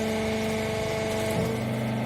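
Hydraulic power unit of a rag wiper press baler running with a steady hum. About one and a half seconds in, the hum changes briefly and its higher tones drop out.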